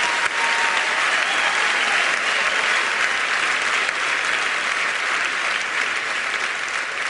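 Large theatre audience applauding steadily, a dense clapping sound that eases slightly near the end.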